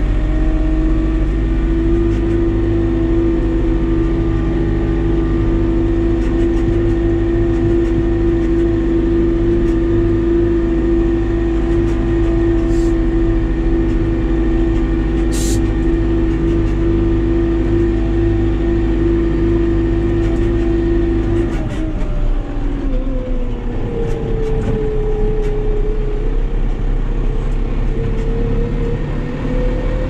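Tractor engine running steadily while driving, heard from inside the cab. About 21 seconds in, the engine note drops and then slowly rises again.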